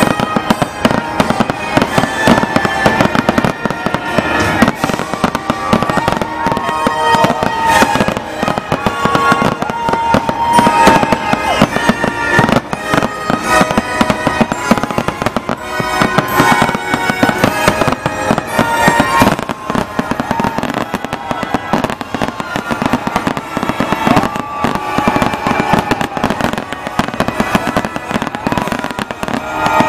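Aerial fireworks shells bursting in quick, continuous succession, with music playing underneath.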